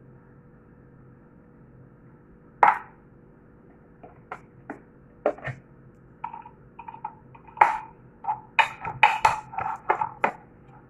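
Kitchenware being handled: a sharp knock, then scattered clinks and taps of a can and utensils against a bowl and counter, coming quicker toward the end. A faint steady hum sits underneath.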